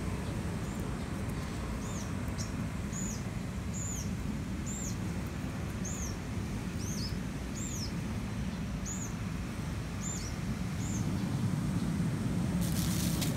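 A small bird chirping repeatedly, about a dozen short high chirps roughly one a second, over a steady low rumble. The chirps stop about eleven seconds in, and a brief hiss follows near the end.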